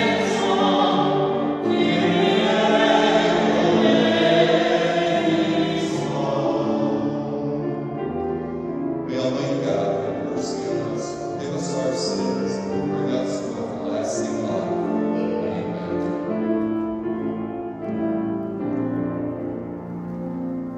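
A woman cantor singing a hymn with grand piano accompaniment. About eight seconds in, the voice stops and the piano plays on alone with held chords.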